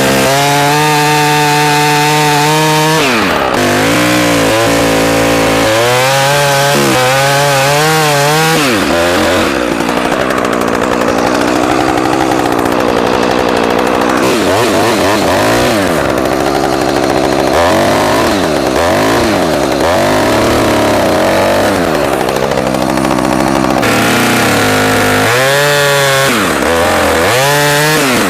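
Two-stroke chainsaw running near full throttle while cutting into a standing tree's trunk to make the notch. Its pitch drops sharply and climbs back about three seconds in, then sags and wavers for a long stretch as the chain bites into the wood. It dips again near the end.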